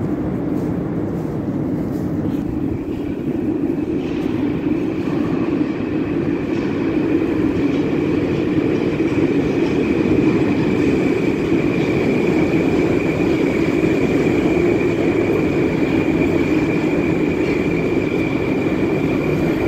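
Moscow Metro train pulling into an underground station and running along the platform: a steady rumbling that grows louder as it arrives. A steady high whine joins about three seconds in.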